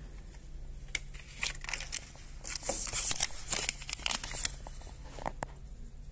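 Paper printout slip rustling and crinkling as it is handled, with scattered light clicks and a burst of rustle about halfway through, over a faint steady low hum.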